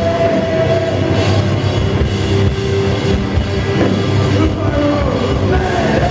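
Heavy rock band playing live at full volume: distorted electric guitars, bass and drum kit in a dense, continuous wall of sound.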